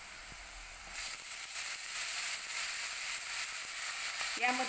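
Hot oil and spice masala sizzling in a kadhai; about a second in, the sizzle turns louder and crackly as the freshly washed hadga (agati) flowers go into the pan and are stirred.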